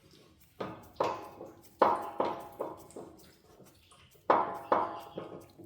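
Sharp metal clanks, about eight in irregular groups, each ringing briefly like struck steel.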